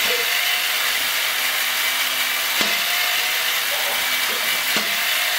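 A robot's ball-shooting flywheel and motors running with a steady whirring hiss. Two short thumps come about two seconds apart.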